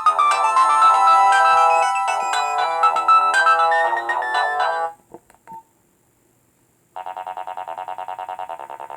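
Nokia 1600 mobile phone playing ringtones through its small loudspeaker: a multi-note electronic melody stops about five seconds in, a couple of faint clicks follow, then after about a second of silence a new ringtone starts with fast, evenly repeated notes.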